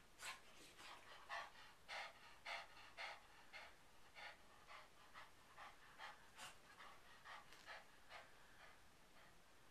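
Cavalier King Charles Spaniel panting faintly and rhythmically, about two breaths a second, after play. The panting stops a little before the end.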